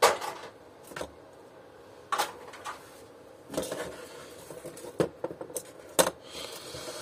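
Pliers and small plastic and metal parts being picked up, handled and set down on a steel workbench: a string of separate clinks and knocks, the loudest right at the start and another sharp one about six seconds in.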